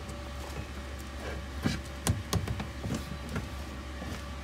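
Scattered light knocks, clicks and scrapes of a clear vinyl hose being worked back onto a plastic pipe fitting by hand, over a steady low hum.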